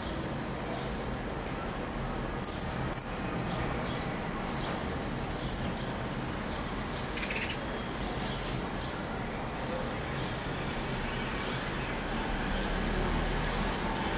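Caged saffron finches calling: two loud high chirps about two and a half seconds in, then from about nine seconds a run of short, high chips that come more and more often.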